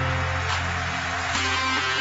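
Background music with guitar over a held low bass note.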